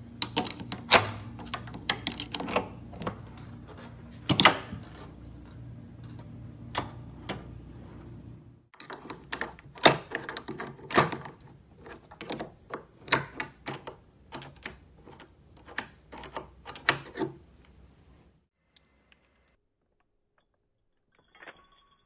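Through-the-lock entry: a flat steel key tool clicking and scraping against the metal parts inside a mortise lock while the deadbolt and slam-latch are worked back. Irregular sharp clicks and clacks, some loud, with a low steady hum under the first part; they stop about eighteen seconds in, leaving near quiet with a few faint clicks near the end.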